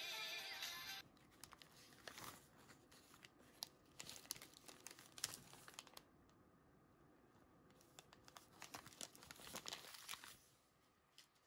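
Faint crinkling of plastic zip-lock bags being handled, with irregular small clicks, quieter for a couple of seconds in the middle. Music cuts off about a second in.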